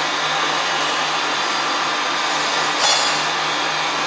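Electric colloid-mill nut butter grinder running steadily, its motor giving a continuous hum and whir as liquid recirculates through the mill into the hopper. A brief sharp sound cuts in just under three seconds in.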